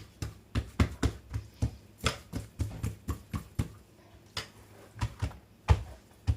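Hands working soft whole-wheat dough on a work surface, a run of quick soft knocks and slaps, about three to four a second, thinning out to a few sharper knocks in the second half.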